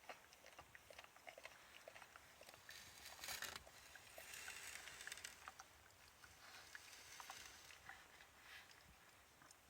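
Puppy eating: faint, irregular clicks of chewing and biting, with a couple of brief noisier rustling patches a few seconds in.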